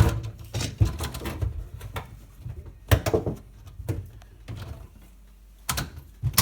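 Hard plastic clicks and knocks, several scattered over a few seconds, as a dishwasher's interior part is pushed and snapped into place in the tub.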